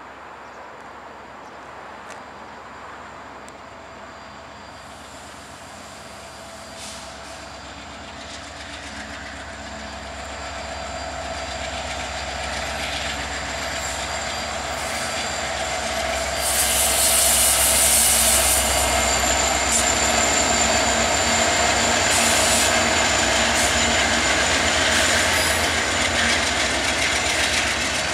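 Norfolk Southern freight train with two diesel locomotives approaching and passing, growing steadily louder. It is loudest from about two-thirds of the way through, as the locomotives go by, and stays loud as the first container cars follow.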